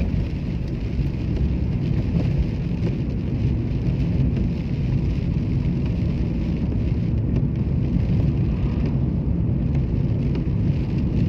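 Steady low rumble of a car driving through rain and strong wind, heard from inside the cabin: road, wind and rain noise together.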